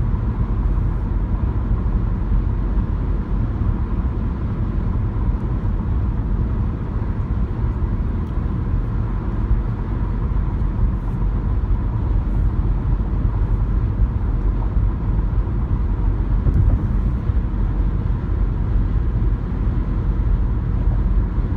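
Steady in-cabin road noise of a car cruising on a highway: a low, even rumble of tyres and engine, with a faint steady high tone running through it.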